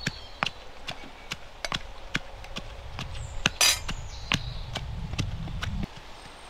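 Metal pestles pounding garlic and red chilli in steel mortars, sharp metallic knocks about two to three a second.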